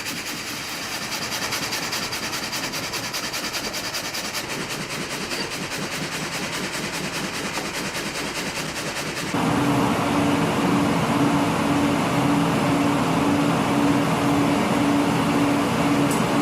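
Machinery running steadily with a fine, fast rhythmic rattle, then an abrupt switch about nine seconds in to a louder machine with a steady hum that pulses evenly.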